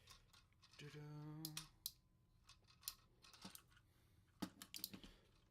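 Hard plastic parts of a Transformers action figure clicking and snapping as they are rotated and locked into place, a scatter of separate clicks. A short hummed voice note comes about a second in.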